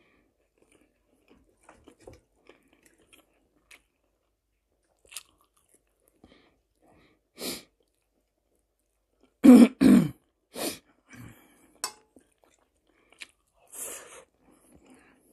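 Close-miked chewing of an omelette with bell pepper, with faint mouth sounds and small clicks of a fork on the plate. About two-thirds of the way through she clears her throat with two loud, short coughs in quick succession.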